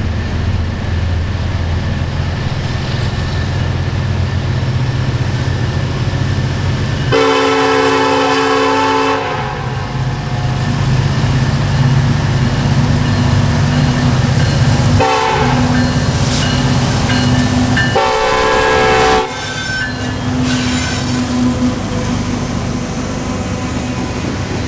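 Norfolk Southern EMD SD70ACE diesel locomotive approaching with a steady low engine rumble. Its multi-note air horn sounds a long blast about seven seconds in, a short blast near the middle and another long blast about eighteen seconds in.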